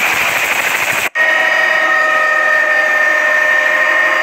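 Helicopter running close by with a loud, fast rotor chop over rushing noise. After a sudden break about a second in, it is heard from inside the cabin as a steady whine of several held tones over a rush.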